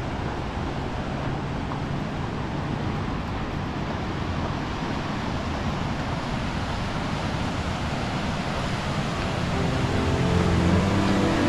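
Mokelumne River rushing steadily through rapids, swollen with spring snowmelt. Music fades in near the end.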